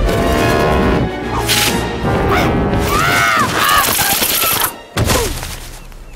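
Cartoon fight sound effects: a seagull being swarmed by crabs, a dense scuffle of thumps and clatter with a few squawks from the gull about three to four seconds in, over background music. The din breaks off just before five seconds, with one last burst after.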